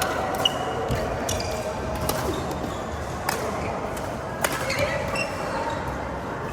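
A badminton rally: rackets strike the shuttlecock in about five sharp cracks, roughly a second apart, ringing in a large hall. A low murmur of background noise runs under the hits.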